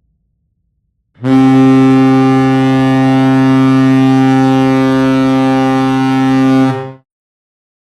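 Vegas Golden Knights' 2017-18 goal horn sounding one long, steady, low blast of about six seconds, starting about a second in and cutting off. It is the dry recording, without reverb.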